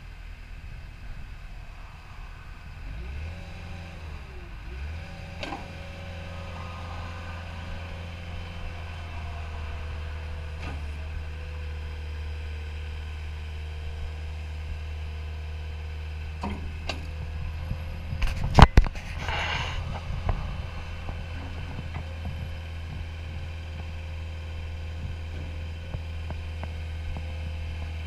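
CAT 259D compact track loader's diesel engine running steadily, picking up a little about three seconds in, with a steady hydraulic whine as the lift arms raise and lower the bucket. A single sharp metallic clank about two-thirds of the way through is the loudest sound, followed by a brief rattle.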